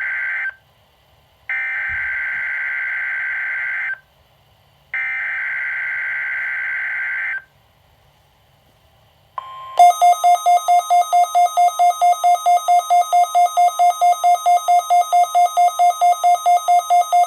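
NOAA Weather Radio weekly test tones: the end of one buzzing burst of SAME digital header data and then two more, with short gaps between them, followed about nine seconds in by the 1050 Hz warning alarm tone, joined by a loud pulsing beep about four times a second. These are the signals that switch on weather alert receivers.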